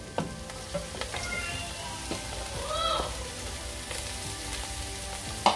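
Shredded cabbage and carrots sizzling in hot oil in a frying pan as the cabbage goes in, with a few light knocks against the pan. A brief rising-and-falling tone sounds about halfway through.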